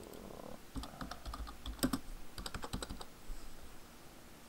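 Computer keyboard being typed on: a quick, uneven run of keystrokes that stops about three seconds in.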